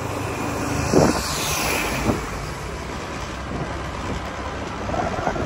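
Riding noise on a moving scooter: steady wind and road rumble with the small engine running, and a brief louder burst about a second in.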